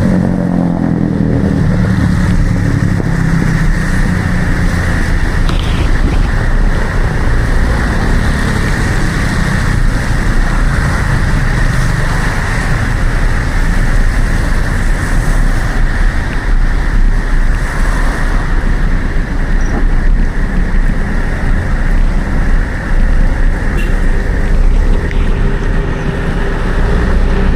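Steady wind and road noise on a DJI Action 4 camera's microphone while cycling in traffic. A motor vehicle's engine is heard for the first two or three seconds, then fades.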